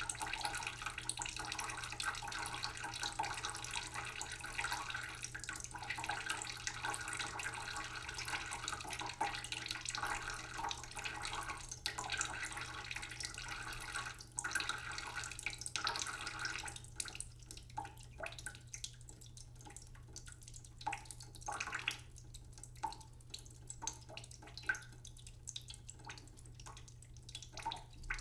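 Water running from a tap into a sink as a steady splashing stream. About two-thirds of the way through it thins out into separate drips and drops.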